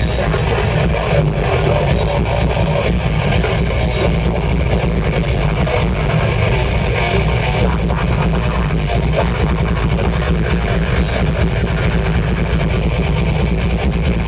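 A rock band playing live and loud, electric guitars over bass and drums, in one continuous dense passage.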